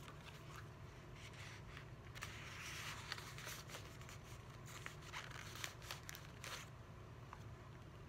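Faint rustling and light, scattered clicks of photo prints being handled and shuffled through, over a steady low room hum.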